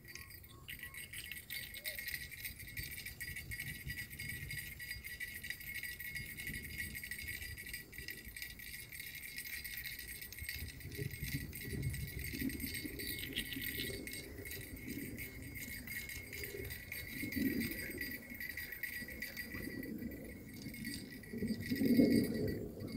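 A hooked red-tail catfish being played on a fishing rod and reeled in, with rustling handling sounds that swell at times and a loud splash about a second before the end as the fish reaches the surface. A steady high-pitched buzz runs underneath throughout.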